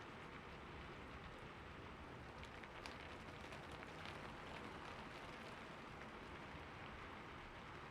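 Steady rain falling, with a few separate drops ticking out above the even patter.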